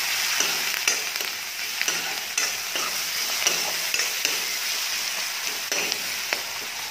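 Sliced potatoes and onion frying in hot oil in a metal kadai, sizzling steadily while a metal spatula stirs them, scraping and knocking against the pan at irregular intervals.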